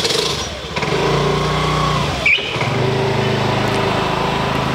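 A small motorbike-type engine running steadily. Its note dips briefly about two seconds in, and a short high chirp follows.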